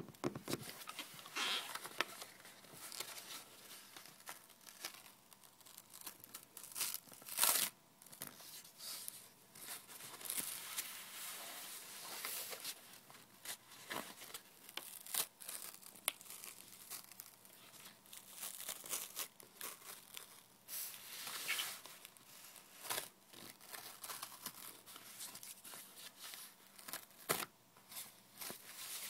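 Corrugated cardboard being torn and peeled apart by hand, its paper layers ripping in irregular strokes, with a few louder sharp rips among softer rustling and scraping.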